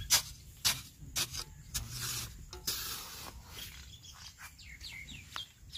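Short-handled spade scraping and chopping into dry, crumbly soil, a string of irregular strokes as earth is loosened and scooped in a dug pit.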